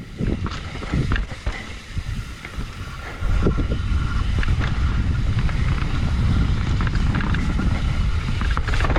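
Mountain bike riding downhill over a wet, rooty trail: tyres and frame clattering with scattered knocks, then from about three seconds in a steady low rush of wind on the microphone as speed builds.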